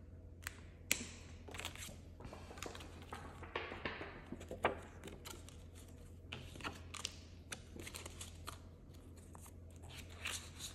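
Polymer banknotes and a cash binder's plastic sleeve being handled: a run of soft rustles and small clicks over a low steady hum.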